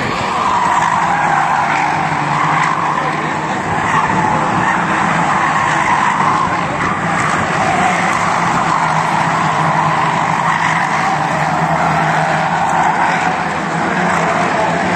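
A pack of ministox stock cars (Minis) racing round a tarmac oval, several small engines running together with tyre noise, loud and steady throughout.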